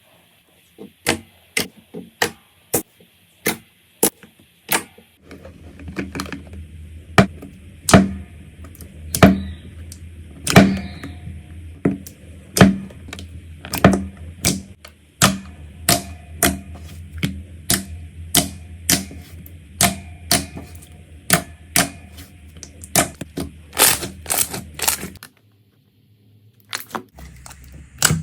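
Slime being pressed and squeezed, giving a run of sharp, crisp pops and clicks, about one or two a second. A short gap comes near the end.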